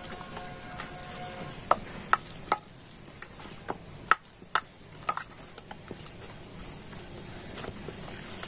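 Hands kneading and punching down risen, oiled dough in a stainless steel bowl to press the air out: irregular soft squelches and slaps of the dough, with sharp knocks against the steel bowl every half second or so.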